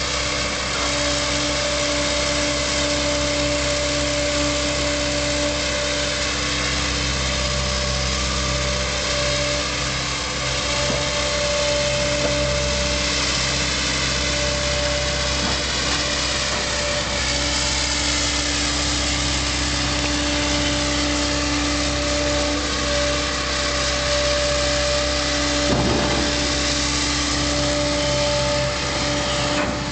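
JCB tracked excavator's diesel engine running steadily, with a constant hum and whine throughout. A single short knock comes a few seconds before the end.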